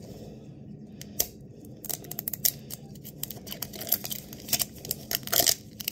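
Fingers picking at and peeling the plastic film wrapper and its tear strip off a plastic capsule ball: a run of small sharp crinkling clicks, sparse at first and thicker from about two seconds in.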